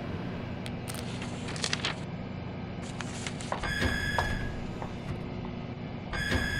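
Steady low hum of indoor room ambience, with a few light clicks and knocks about a second in and two short bursts of a high, rapidly trilling tone, one around three and a half seconds in and one near the end.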